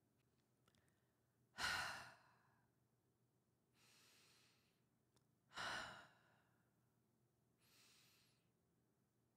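A woman's slow, deep breathing, paced as a guided relaxation breathing exercise. Four breaths come about two seconds apart, two stronger ones alternating with two softer ones.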